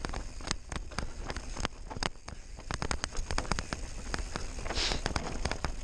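Mountain bike rattling down a rocky dirt trail: a dense, irregular stream of clicks and clatters from the tyres over loose stones and the bike's chain and frame, over a steady low wind rumble on the microphone. A brief hiss comes about five seconds in.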